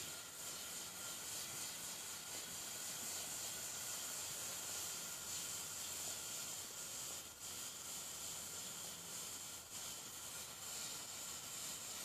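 Methanol burning with a blue flame, the fuel boiling with a steady, high hiss that dips briefly twice.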